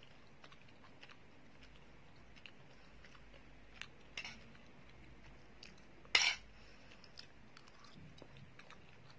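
Someone eating Maggi noodles: soft chewing and a few light clicks of cutlery against the bowl, with one louder, brief clink a little after six seconds in.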